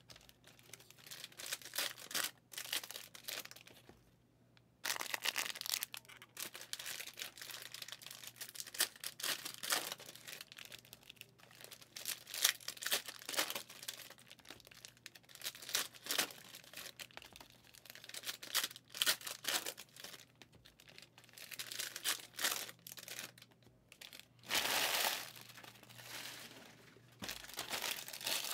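Plastic wrappers on sealed sports trading card hobby boxes and packs crinkling and tearing as they are opened by hand, in irregular rustling spells with a short pause about four seconds in.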